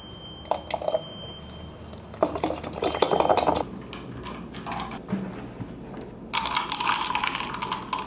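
Ice and a glass drinking jar being handled, clinking and rattling in several separate bursts.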